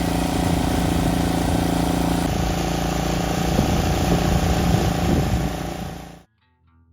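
Engine running steadily, its tone shifting slightly about two seconds in, then cutting off abruptly near the end.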